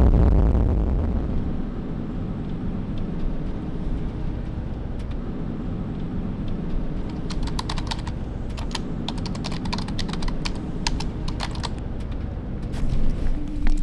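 Computer-keyboard typing sound effect: a quick, irregular run of keystroke clicks lasting about five seconds, starting about halfway through, over a steady low hum.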